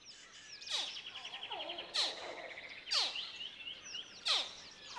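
Crocodile hatchlings calling: a sharp, falling chirp about once a second, over a steady high trill and smaller chirps.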